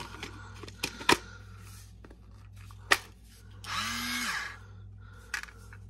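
Battery-powered gravity salt and pepper grinder's small electric motor whirring for just under a second about four seconds in, spinning up and winding down; the grinder is still empty. Before it come a few sharp plastic clicks and knocks as the grinder's parts are fitted back together, the loudest about three seconds in.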